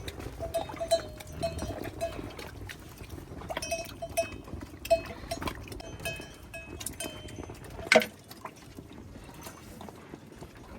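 Livestock bells clanking in short, irregular rings, with one sharp knock about eight seconds in.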